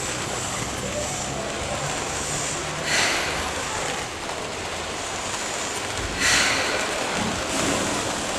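Electric commuter train running, a steady rushing rail noise with two short hisses about three seconds apart and a deeper rumble setting in near the end.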